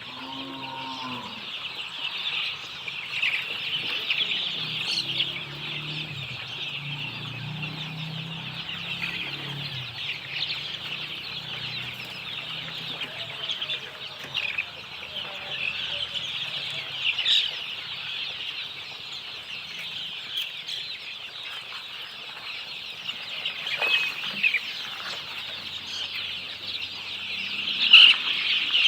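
Desi chickens clucking, with low calls bunched in the first third, over a continuous high-pitched chorus.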